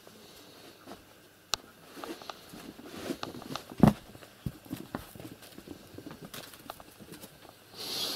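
Kittens scampering and pouncing across a floor: light scattered patters and knocks of paws, with one loud thump about four seconds in.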